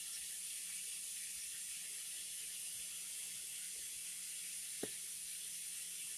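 Quiet steady hiss with a faint low hum: room tone, with one faint click a little under five seconds in.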